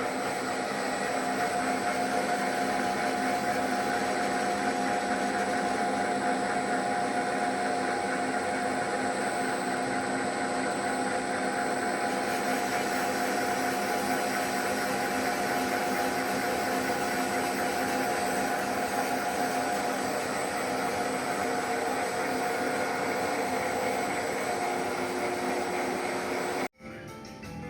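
Cummins NTA855 turbocharged inline-six diesel engine running at a steady speed, with a thin high turbo whine over it. It cuts off suddenly about a second before the end.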